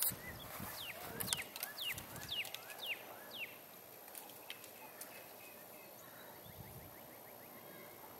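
A songbird singing a quick run of about six whistled notes, each sliding downward in pitch, over the first three seconds or so, with a few soft thumps beneath; after that only faint outdoor background.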